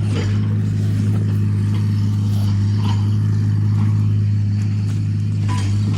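Excavator's diesel engine running at a steady speed, a constant low drone, with a few faint knocks over it.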